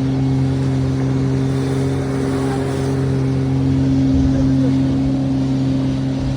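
An engine running steadily at an even pitch: a constant low hum over a rushing noise.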